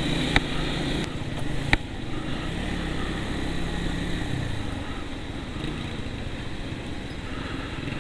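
Motorcycle engine running steadily while riding along, its pitch wavering slightly. Two short sharp clicks come in the first two seconds.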